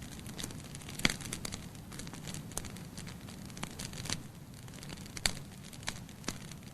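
Wood fire in a fireplace crackling, with irregular sharp pops and snaps, two of them louder about a second in and near five seconds in, over a steady low rumble.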